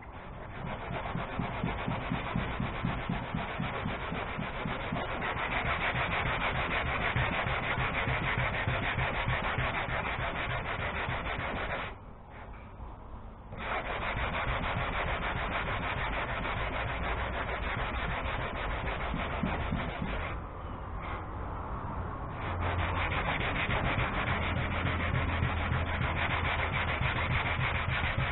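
Sandpaper on a hand sanding block rubbed back and forth over a fiberglass boat deck, a continuous scratchy rasp of quick strokes. It stops for about a second and a half around twelve seconds in, then carries on.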